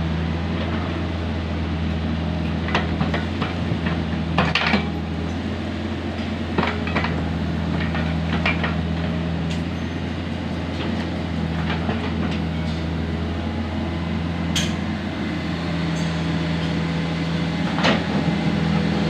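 Komatsu PC45 mini excavator's diesel engine running steadily under work, with scattered metallic clanks and knocks from the machine about half a dozen times.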